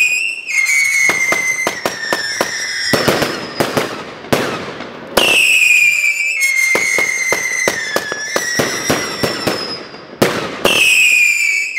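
Firework cake firing: three-step whistler shots, each a high whistle lasting a couple of seconds that drops in pitch in steps, come three times, with sharp cracks and loud bangs from titanium salute shots in between.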